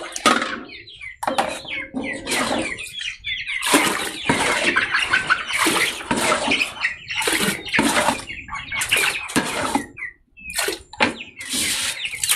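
Water sloshing and splashing in a large metal cooking pot as it is scrubbed out and rinsed by hand, in irregular bursts with short pauses.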